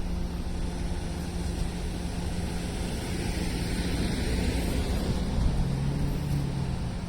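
Seibu 2000 series electric train running past on the rails: a steady rumble and rail noise, swelling a little in the middle, with a low motor hum near the end.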